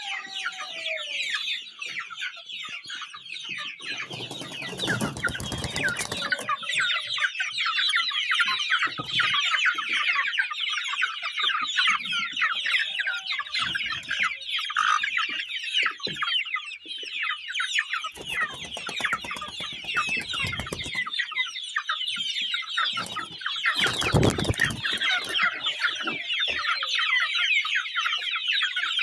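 A large flock of young Sasso chickens cheeping, a dense, unbroken chorus of many overlapping high chirps. A few low rumbles of noise cut in briefly: one about four seconds in, a longer one later, and a short one near the end.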